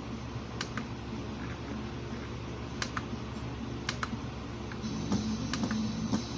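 A steady low electrical hum with a scatter of sharp clicks, like buttons or controls being worked. About five seconds in, music starts to come in quietly through the speaker as the volume is brought up.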